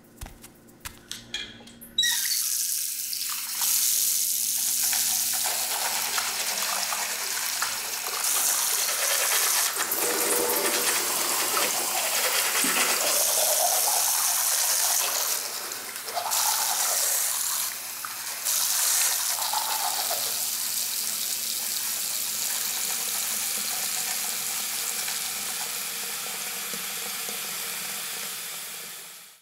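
Bathroom sink tap turned on about two seconds in after a few light clicks, then water pouring steadily from the faucet into the basin, briefly dipping twice, and fading out at the end.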